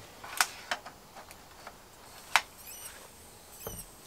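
Samsung 50-inch TV with a failed main board, plugged in with its back off: from about two-thirds in, its electronics give short, high chirps that fall in pitch, about once a second. Before that come a few sharp clicks, the loudest a little past halfway.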